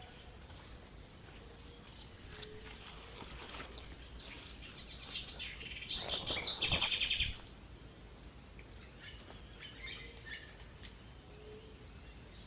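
Tropical insects keeping up a steady high-pitched drone, with a bird calling about six seconds in: a quick downward sweep followed by about a second of rapid repeated notes, the loudest sound here.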